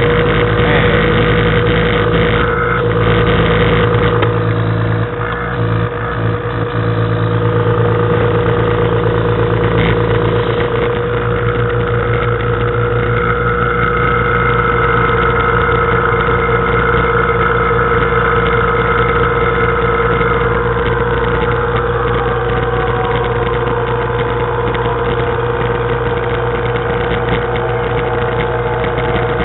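Electric refrigeration vacuum pump running steadily, evacuating a refrigerator's sealed system through the gauge hoses. A higher whine in its note slides down in pitch over the last third.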